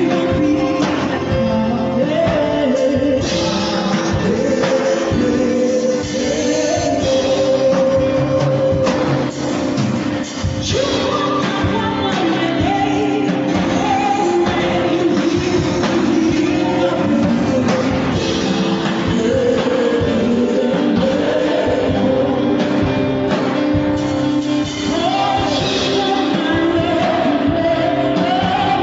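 Music: a song with singing over a full band accompaniment.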